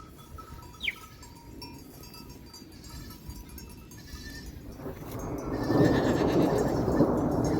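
A flock of sheep and goats bleating, faint at first and swelling to a loud mass of many voices about five seconds in; a short, sharp high call falls in pitch about a second in.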